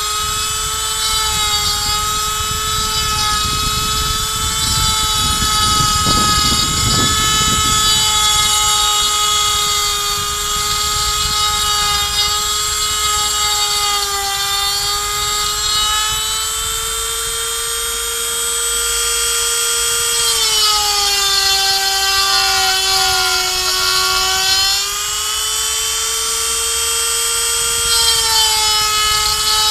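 A 135-watt handheld rotary tool, used as the spindle of a mostly 3D-printed CNC router, whines steadily with a 3 mm bit as it mills pine. A low rumble of the cut comes in around six seconds in, and about twenty seconds in the whine's pitch sags for several seconds as the motor slows under the load.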